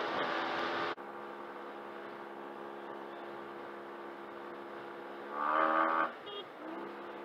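Yamaha TMAX 500 maxiscooter's parallel-twin engine running steadily, with wind noise that cuts off suddenly about a second in, leaving the engine's even hum. About five seconds in, a brief louder surge rises in pitch and falls away.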